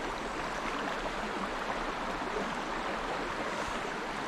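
Shallow, riffly river water rushing steadily over rocks.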